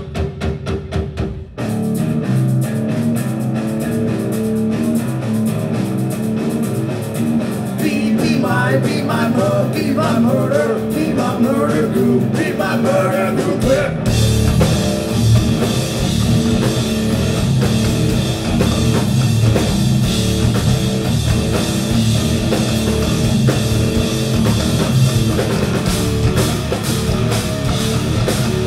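Live heavy rock band playing loud, with distorted electric guitars, bass and a drum kit. A sparse rhythmic figure gives way to the full band about a second and a half in. The sound gets heavier and brighter about halfway through.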